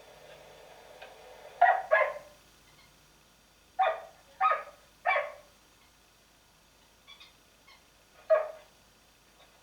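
A dog barking in short, sharp barks: two close together, then three about half a second apart, then one more near the end.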